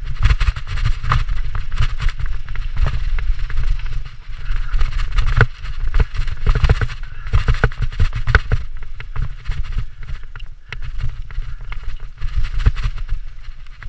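Mountain bike ridden fast down a dirt trail: tyres crunching over dirt and dry leaves, the bike rattling with many sharp knocks over bumps, and wind buffeting the microphone with a heavy rumble.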